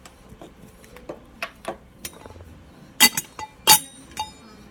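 Makeup compacts and containers clinking against each other and the counter as they are handled: a few light taps, then two sharp ringing clinks about three seconds in and a softer one near the end.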